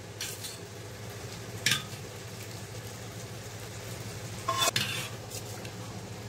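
Steel spoon stirring dal in a stainless-steel pot, clinking against the metal a few times with a short ring, the clearest clinks about two seconds in and near four and a half seconds. A low steady hum runs underneath.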